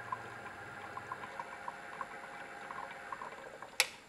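Magnetic stirrer running under a beaker of thick nitration slurry: a steady faint hum with small irregular ticks, and one sharp click near the end.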